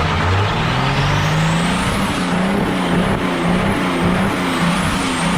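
Engine revving up over about two seconds and then held at high revs, its pitch rising and falling about twice a second, with a high whine that follows it. The engine is pumping out motor oil through holes in the block, its piston rings fried.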